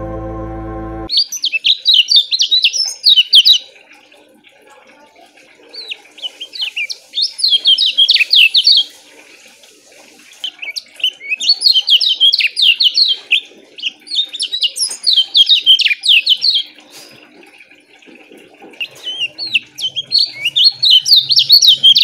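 Kecial kuning, a yellow white-eye, singing in five short bouts of rapid, tightly packed high chirps, each two to three seconds long with pauses of a few seconds between. Organ music cuts off about a second in.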